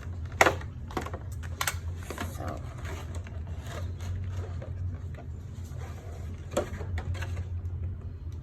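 Plastic and cardboard toy packaging being handled and cut: irregular clicks, rustles and knocks, a sharp knock about half a second in and another near the end, over a steady low hum.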